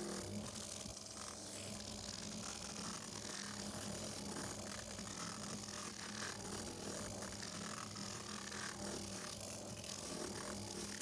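Homemade drum sander built from an old washing machine running, its motor humming steadily under a scratchy, rasping hiss as it sands wood.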